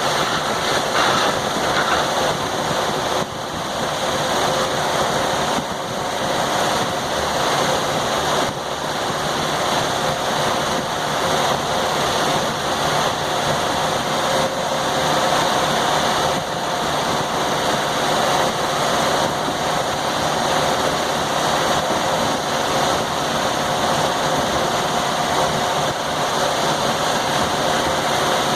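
Sawmill running steadily under power, a constant mechanical drone with no pauses or changes in pitch.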